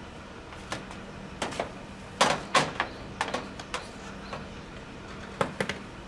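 Plastic fan grille of an air-conditioner outdoor unit being prised off its clips with a screwdriver and handled: a run of sharp plastic clicks and knocks, the loudest pair about two seconds in and another quick cluster near the end.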